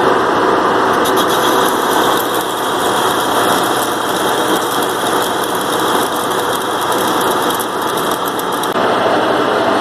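1943 Sidney 16x54 engine lathe running under a turning cut, chuck spinning and tool cutting a round bar: a loud, steady mechanical running noise. The sound shifts slightly near the end.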